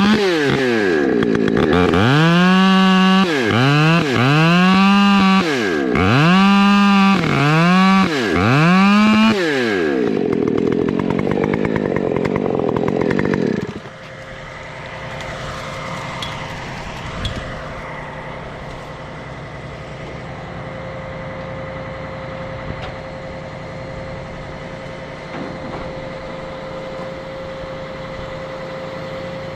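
Chainsaw engine revved up and down about six times in quick succession, then running rougher for a few seconds. About fourteen seconds in it drops to a quieter, steady running sound.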